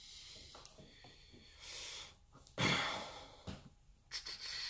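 A man breathing audibly, a few breaths with no voice in them, the loudest about two and a half seconds in.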